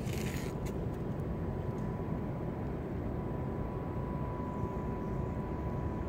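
Steady low rumble of background noise with a faint steady high tone, and a brief hiss right at the start.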